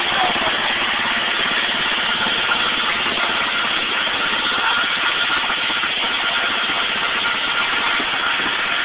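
Husqvarna riding mower's 13 HP Kohler OHV single-cylinder engine, governor removed, running steadily through its custom exhaust.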